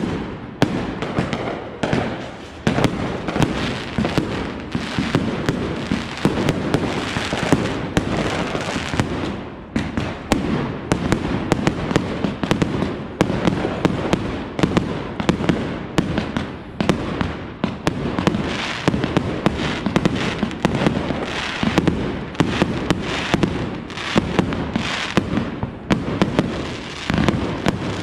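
A consumer fireworks cake firing a rapid, continuous barrage of bangs and crackles overhead, many shots a second without a pause.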